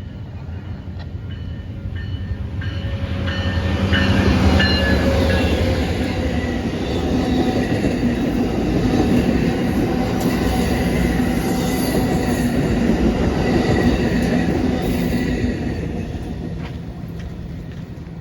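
A train passing by: its rumble builds over the first few seconds, stays loud with wheels clicking over the rails for about ten seconds, then fades away.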